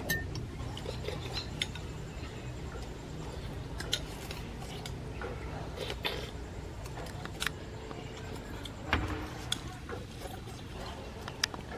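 Metal spoons clinking and scraping against ceramic soup bowls, scattered light taps every second or two over a low steady background.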